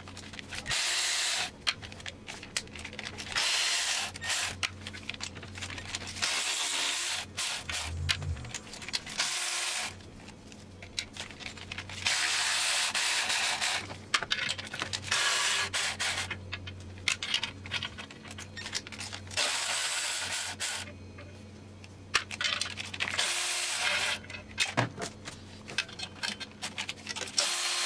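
Cordless ratchet running in about eight short bursts, each a second or so and a few seconds apart, spinning the 10 mm nuts off the exhaust manifold studs. Light clicks and clinks of the socket and loosened nuts come between the bursts.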